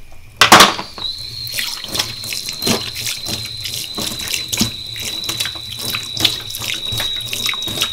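Kitchen tap running into a stainless steel sink, water splashing on the steel as a hand rinses the basin, with a sharp loud splash or knock about half a second in. A thin, steady high whistle sounds over the running water from about a second in.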